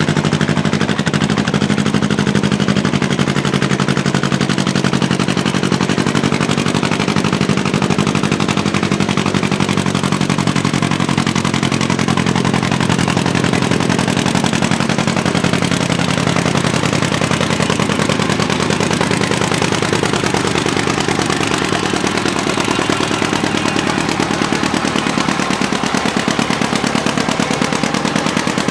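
Antique John Deere two-cylinder tractor engine working hard under load as it pulls a weight-transfer sled. The exhaust pops in a fast, even stream of beats.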